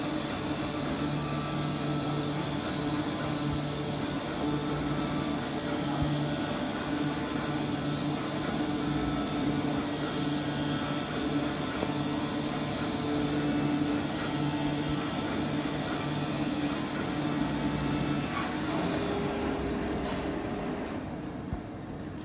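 AOKE DCZ70 flatbed CNC cutter running as it cuts corrugated plastic sheet: a steady whirring of its vacuum hold-down blower and head motors, with a low hum that comes and goes as the cutting head moves. The noise eases near the end, with a single knock.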